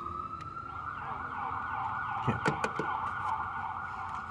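A sustained siren-like tone, holding steady at a high pitch, with a few sharp clicks near the middle.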